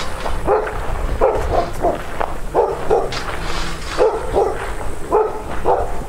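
Guard dog barking nonstop, about two or three sharp barks a second: agitated territorial alarm barking at a stranger near its yard.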